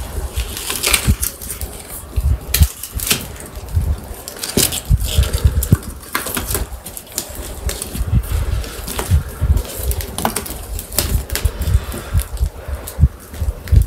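Wood campfire crackling, with irregular sharp snaps.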